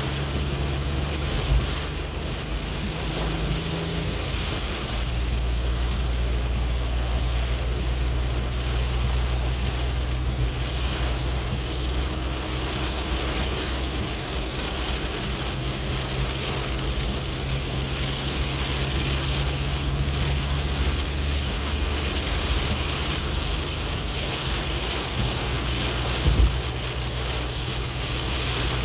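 Steady heavy rain hissing, over a constant low rumble. Two short knocks, one just after the start and one near the end.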